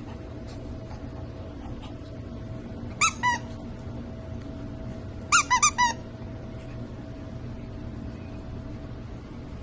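Squeaker in a plush dog toy squeaked by a puppy's bite: two short squeaks about three seconds in, then four quick squeaks a couple of seconds later.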